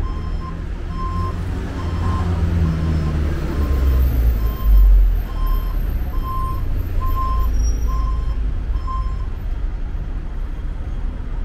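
Street traffic rumble with an electronic beeper giving short, evenly spaced beeps, a little faster than one a second, which stop about nine seconds in. There is a brief, loud low bump near the middle.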